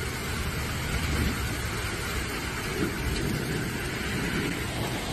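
Storm wind and heavy rain: a steady rushing noise with wind buffeting the microphone in a low, uneven rumble.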